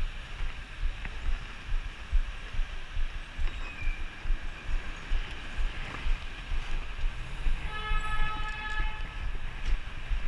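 Street traffic heard from a moving bicycle, with wind buffeting the microphone in a steady low rumble. About eight seconds in, a vehicle horn sounds for about a second and a half.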